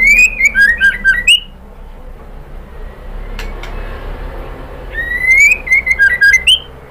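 Female white-rumped shama calling in two phrases, one at the start and one about five seconds in. Each is a rising whistle followed by a quick run of sharp, clipped notes.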